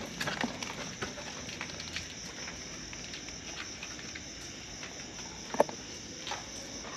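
Crickets chirring steadily in the night, with scattered faint ticks and one sharp short click about five and a half seconds in.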